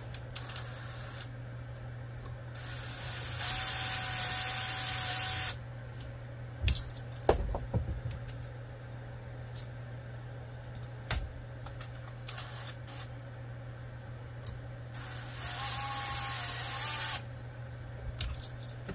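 A small power tool, likely a drill, whirring in two bursts of about two seconds each, with sharp metallic clicks from the wire and tools being handled in between, over a steady low hum.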